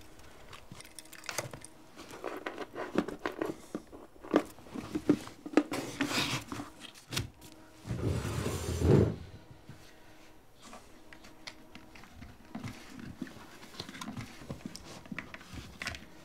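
Small objects and a box being handled on a desk: scattered clicks, taps and rustling, with one louder rustle lasting about a second some eight seconds in.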